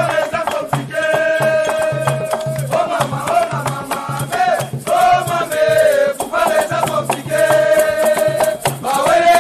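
Background music: long held notes over a steady bass pulse about twice a second, with a shaker keeping time.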